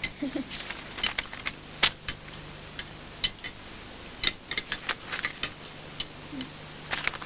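Cutlery clinking against plates and glass dessert bowls: irregular light taps and clicks from people eating.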